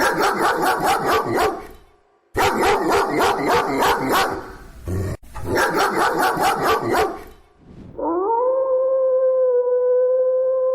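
A dog barking in three quick runs of rapid yaps, about five or six a second, then a long howl that rises at first and then holds a steady pitch.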